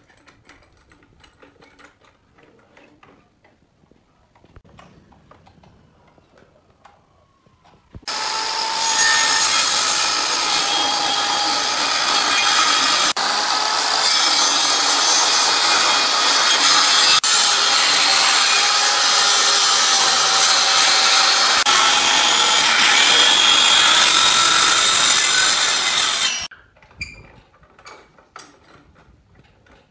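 Handheld electric circular saw ripping a pallet board lengthwise along a clamped guide board. It starts suddenly about eight seconds in, runs steadily through the cut with a held whine for about eighteen seconds, and stops suddenly. Before and after, faint knocks from handling the clamps and wood.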